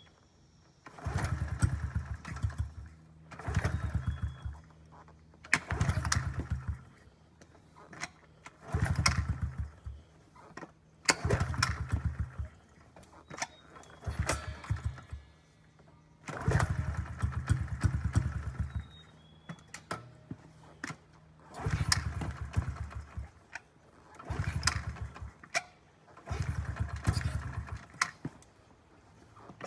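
A 2009 Honda CRF50F pit bike's 49cc four-stroke single being kicked over again and again, about ten attempts each lasting a second or two, without settling into a steady idle. The engine has not been run in two years and is being started on choke.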